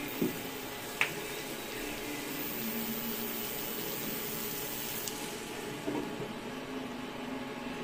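Shrimp frying in garlic butter in a non-stick pan on an induction cooker, a steady sizzle. A short clink just before six seconds in as a glass lid is set on the pan.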